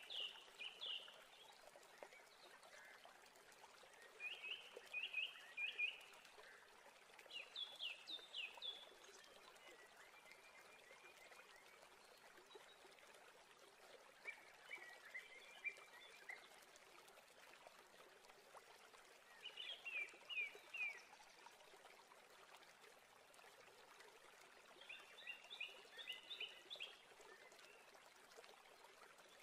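Faint chirping calls, each a short group of several quick high notes, repeating about every four to five seconds over a soft steady hiss.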